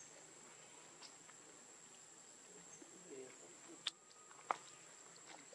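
Near silence: faint outdoor background with a steady high-pitched whine, a faint short wavering call a little after the middle, and two sharp clicks about half a second apart near the end.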